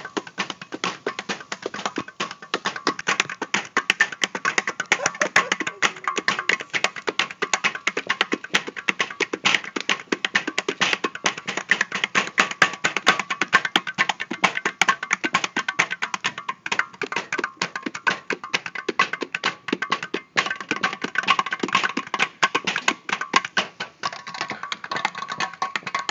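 Music with fast, dense percussion, like wood-block and hand-drum hits, over a steady high tone.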